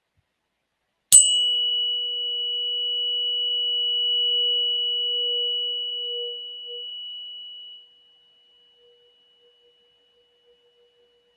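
Soma Energetics 'pineal gland' tuning fork struck once against a crystal stone: a sharp click, then a clear ring with a low tone and a higher overtone. The ring fades over about seven seconds, leaving a faint low tone.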